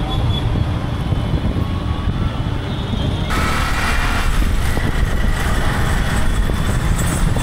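City street traffic heard through a DJI Action 4's built-in microphones: a steady low rumble of engines and wind. About three seconds in it turns brighter and hissier.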